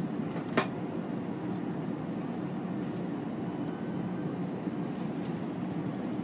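Steady rumble and hiss of an airliner cabin on approach to landing: engine and airflow noise. A single sharp click comes about half a second in.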